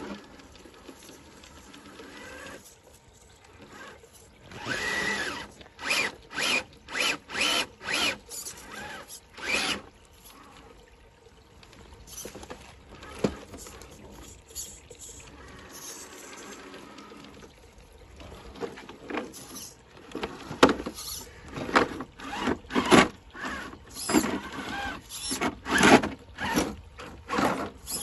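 Absima Sherpa RC crawler's electric motor and drivetrain whirring in short, repeated bursts of throttle, about two a second. There are two runs of bursts with a quieter stretch in between.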